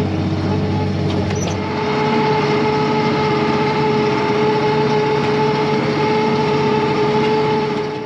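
Farm tractor's diesel engine running steadily under load while pulling a disc through corn stubble, a steady drone with a whine over it, a little louder from about two seconds in.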